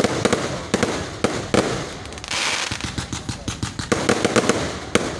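Fireworks going off: a rapid string of sharp bangs, with stretches of crackling hiss between them.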